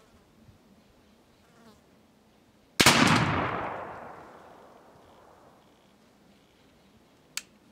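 A 12-gauge CVA Hawken black-powder shotgun fires a single shot about three seconds in: a sharp blast whose echo dies away over about two seconds. A short sharp click follows near the end.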